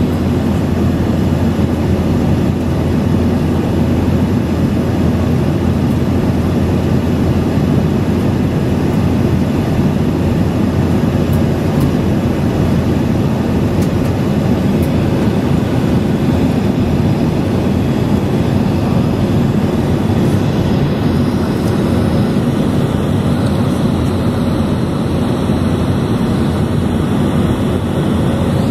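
Airliner cabin noise in flight: the jet engines and rushing air make a steady, deep, even noise inside the passenger cabin.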